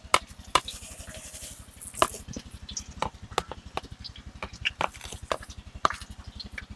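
Metal spoon scraping and tapping against a plate and a steel wok as chopped onion and garlic are pushed into the hot pan: irregular sharp clicks and knocks, with a brief hiss about a second in.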